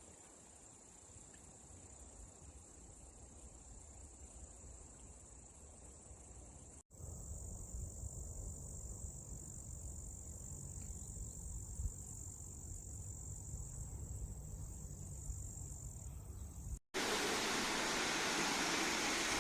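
Outdoor water and insect sound in three abrupt cuts. The first two stretches hold a low rumble under a steady high-pitched insect chorus. About two seconds before the end, a loud even rush of falling water from a waterfall takes over.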